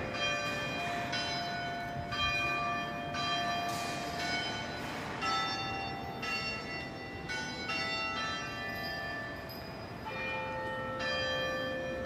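Bells rung in a sequence of different notes, a new stroke about once a second, each note ringing on into the next.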